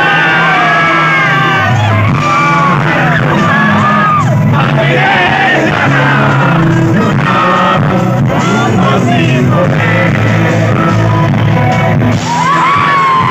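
Live concert music through a PA system: a male singer singing into a microphone over the band, with steady heavy bass notes.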